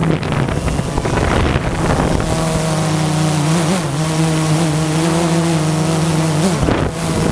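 Quadcopter drone's motors and propellers buzzing at a steady pitch, picked up by its onboard camera, with wind rushing over the microphone. The pitch wavers briefly about halfway through and shifts again shortly before the end.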